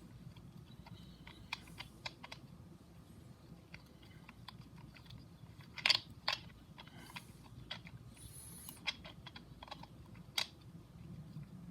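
Scattered light metallic clicks and taps as a nut is worked onto its threaded shaft in a motorcycle's primary drive, with two louder clicks about six seconds in.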